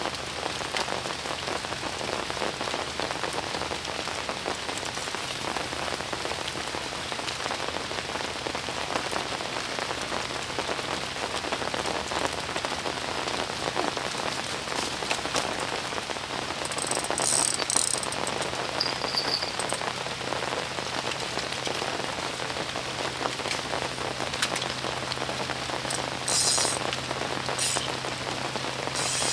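Heavy rain falling steadily, an even hiss of drops with a few brief high crackles about two-thirds of the way in and near the end.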